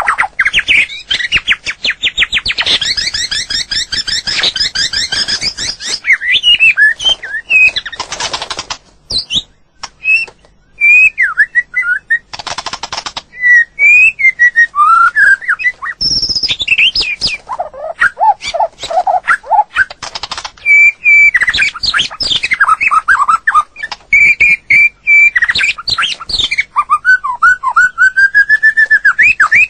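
White-rumped shama singing a varied song of clear whistled phrases that slide up and down. Between them come fast trills of rapidly repeated notes and short harsh rattling notes.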